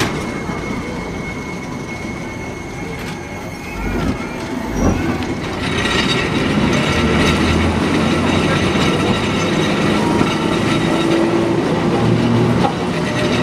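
A 1915 St. Louis Car Company streetcar running along its rails, heard from aboard: steel wheels and running gear rumbling, with a couple of low thumps about four seconds in. The running noise grows louder about five to six seconds in.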